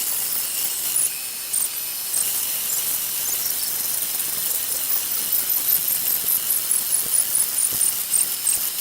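3D printer running a print: its stepper motors whine in short high-pitched tones that jump from pitch to pitch as the print head changes moves, over a steady hiss.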